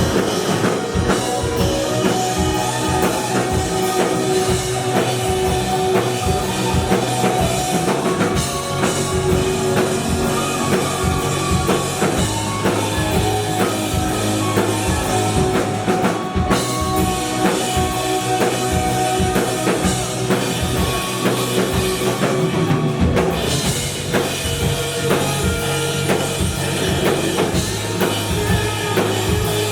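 Live rock band music with a steady drum kit beat.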